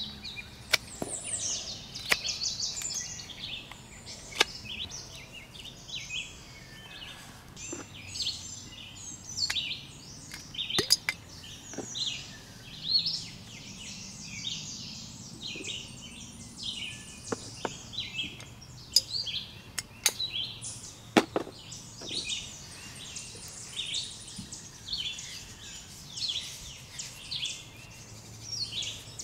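Sharp, irregular knocks of a blade cutting into wood while a wooden spoon is being carved, over steady chirping and singing of many birds.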